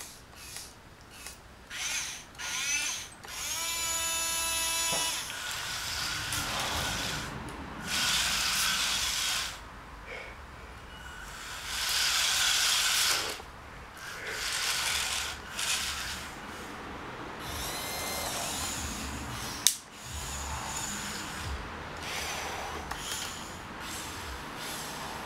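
Small geared electric motors of a homemade RC rover whining in repeated short bursts as it drives and stops, one burst a clear steady whine. There is a single sharp click about two-thirds of the way through.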